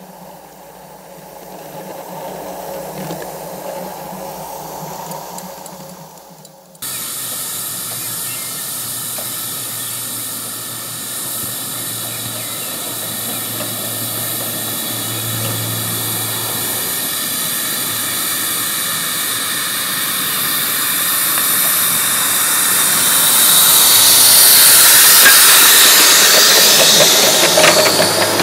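Steam hissing from a 3½-inch gauge live-steam model locomotive. It jumps suddenly louder about seven seconds in and swells further late on, with a few sharp clicks near the end.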